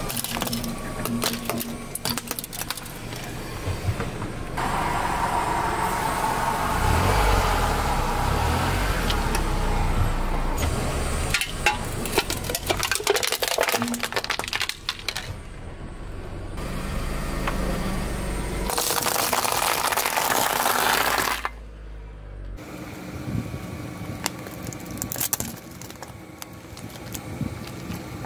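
A car tyre slowly rolling over small objects on asphalt, including a plastic toy tiara, which crack and snap under its weight, while the car's engine runs low. The sound comes in several short takes that change abruptly.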